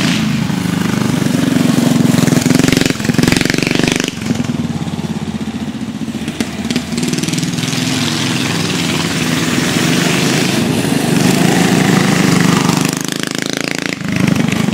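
Small gasoline mini bike engines running under way as the bikes race, steady at speed, with brief breaks in the sound about four seconds in and again just before the end.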